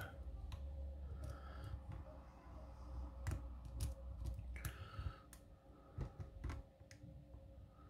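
Faint, irregular small clicks of a hook pick working the pin tumblers of an all-brass American barrel padlock, with low handling rumble in the first five seconds or so.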